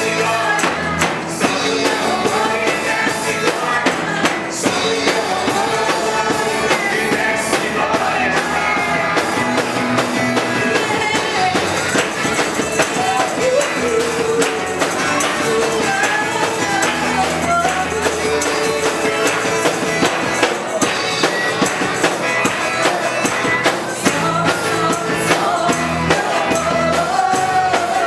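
Worship band music with drum kit, guitar and singing, playing steadily.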